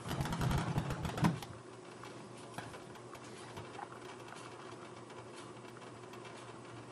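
Steady low mechanical hum. A burst of rapid clatter and rumble fills the first second and a half, and scattered faint ticks follow.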